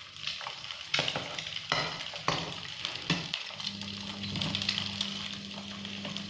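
An egg frying in oil in a pan, sizzling, with a few sharp scrapes and knocks of a cooking utensil against the pan as the egg is turned and pushed. A low steady hum comes in a little past halfway.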